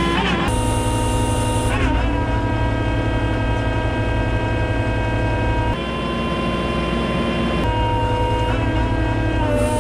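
Kubota SVL95-2 compact track loader's four-cylinder diesel engine and hydraulics running steadily with the Bradco HP600 cold planer attached: a low drone under a steady whine, whose pitch jumps abruptly several times.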